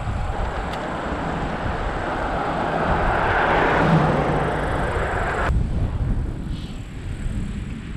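Wind rushing over the microphone and road noise from a bicycle being ridden. The rush swells to its loudest about four seconds in, then drops off sharply about a second and a half later.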